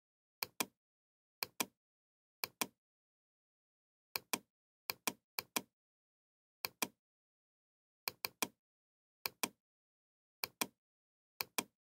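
Computer mouse clicks, about a dozen at uneven intervals, each a quick double tick of the button pressing and releasing, with dead silence between.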